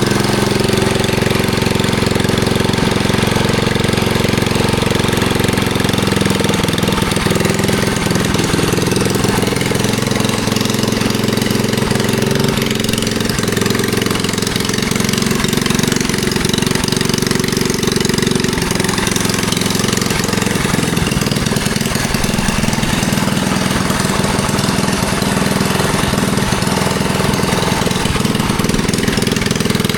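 Predator 212cc single-cylinder four-stroke engine on a mini bike, freshly started and running steadily at low throttle, held back for break-in.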